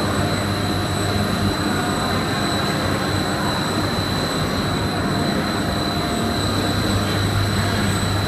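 Snack-pellet extrusion line running: steady machine noise with a strong low hum and a thin, steady high whine over it.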